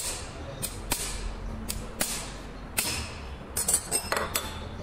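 Irregular sharp metallic clinks and taps of tools on a tractor dual-clutch pressure plate as its release fingers are set, with a quick run of them near the end.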